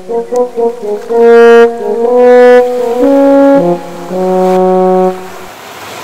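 Short music jingle: a run of quick short notes, then three held notes and a longer final note, stopping about five seconds in.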